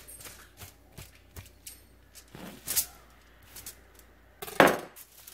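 Quiet handling noise of knife work on a beef tenderloin lying on aluminium foil: scattered soft clicks, crinkles and rustles as the chain muscle is cut and peeled away, with one louder short rustle about four and a half seconds in.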